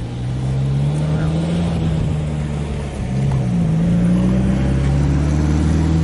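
A motor engine running steadily, its low hum drifting slightly up and down in pitch.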